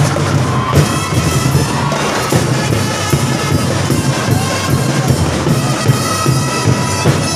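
Live drum band music played outdoors: drums, including large rack-mounted drums, beat a steady rhythm under a high-pitched melody.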